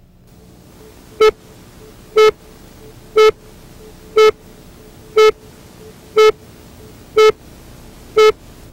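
Countdown leader beeps: a short buzzy beep once a second, eight in all, over a steady hiss.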